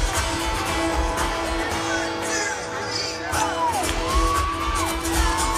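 Live amplified pop music heard from the audience at a concert: a singer's voice gliding over a held tone and a steady bass beat, with crowd noise underneath.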